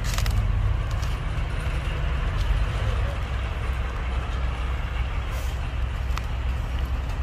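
Heavy diesel machinery engine running steadily with a low rumble, with a few faint knocks.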